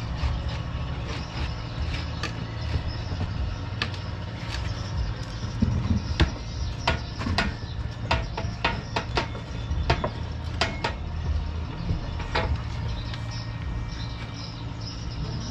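Sharp metallic clanks and taps from hand work on a stripped engine, coming thickest in the middle stretch, over a steady low hum.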